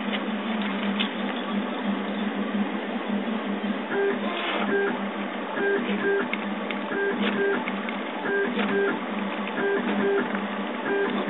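Prusa Mendel RepRap 3D printer running a print: a steady hum from its motors and the print-head cooling fan. From about four seconds in, pairs of short pitched stepper-motor notes repeat roughly every second and a half as the print head moves back and forth.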